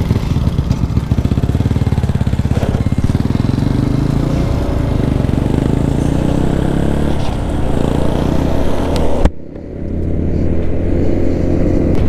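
Small motorbike engine running steadily while riding, with wind rushing over the microphone. About nine seconds in there is a sharp break, after which the wind hiss is much lower and the engine goes on.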